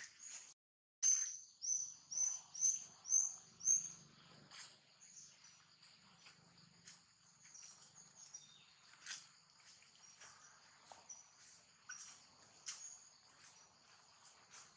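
Outdoor ambience: a bird gives six sharp, high chirps in quick succession, about two a second, over a steady high insect drone, with scattered fainter bird calls after them.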